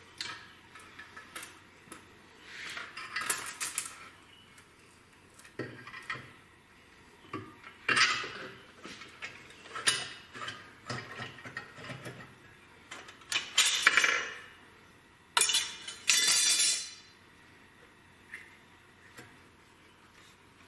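Metal parts and tools clinking and knocking together in irregular handling, with several longer scraping or rustling sounds in between.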